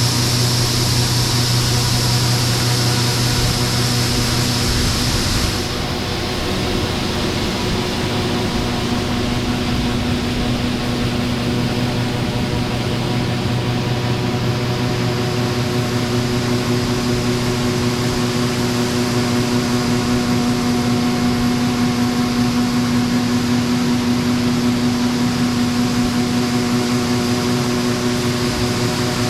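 John Deere 9570 STS combine running steadily under harvest load, a constant drone with several held tones. About six seconds in, the high hiss drops away and the overall sound gets slightly quieter.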